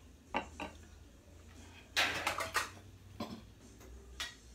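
Kitchen dishes and cookware being handled: a few light clinks and knocks, with a louder clatter about two seconds in.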